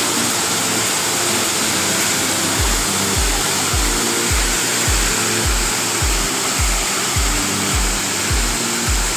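Waterfall: a steady, loud rush of falling water. Background music with a thumping bass beat plays over it, the beat coming in about two and a half seconds in.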